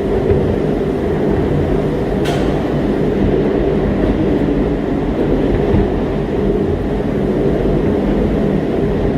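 Gateway Arch tram capsule descending: a steady mechanical rumble heard from inside the small car. One sharp click about two seconds in.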